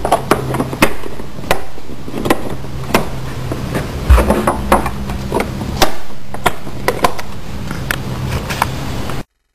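Plastic clips on a C5 Corvette's air filter housing being snapped shut: sharp, irregular clicks and knocks, roughly one a second, over a steady low hum.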